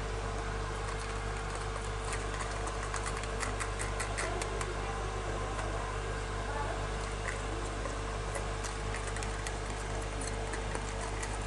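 A steady low hum with a faint constant tone above it, under light clicks and taps of hands and utensils at a kitchen counter. The clicking is busiest about three to five seconds in and again near the end.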